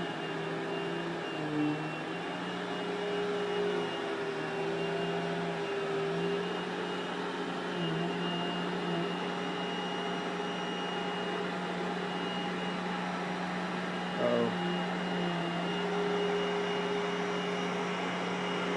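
Vacuum cleaner running steadily, a motor hum over a hiss, its pitch stepping slightly up and down as it is pushed around.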